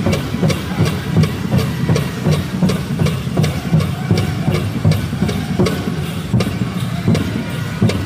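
Powwow drum group playing a chicken dance contest song: singers' voices over a steady, fast beat struck together on a large drum.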